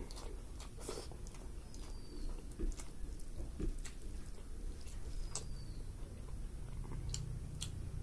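Eating sounds: a hand squishing and mixing rice with curry on a plate, and chewing with scattered sharp mouth clicks.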